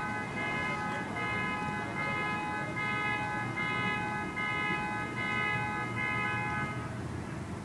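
Car alarm blaring the car's horn in regular repeated honks, about one a second, until it cuts off near the end. A low rumble of street noise runs underneath.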